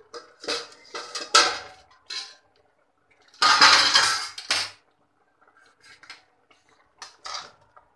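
Stainless-steel plate lid and a perforated steel skimmer clattering and clinking against a steel cooking pot as the lid is handled and lifted off. A string of short clatters, one louder clatter about a second long just before halfway, then a few lighter clinks near the end.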